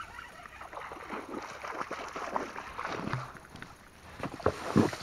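A hooked pike splashing at the water's surface beside an inflatable boat while it is played in on a spinning rod, with a string of small knocks and water sounds and the loudest splashes about four and a half seconds in.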